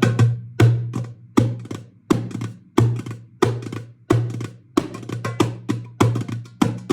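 Hand drum played with bare hands in a steady rhythm: sharp slaps and strokes, each with a short low ringing tone, a main beat about every two-thirds of a second with lighter strokes between.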